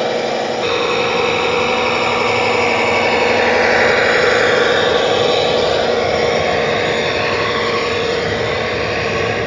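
Radio-controlled scale model Komatsu HD405 dump truck driving loaded, with a steady engine-like running sound that swells a little around the middle.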